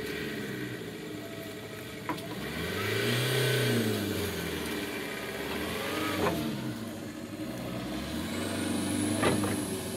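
An engine revving up and falling back several times, with a few sharp clacks in between and a thin high whine rising near the end.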